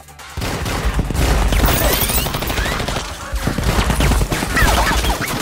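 Heavy gunfire in a film shootout: rapid, overlapping shots and bullet impacts, starting suddenly about half a second in and keeping up without a break.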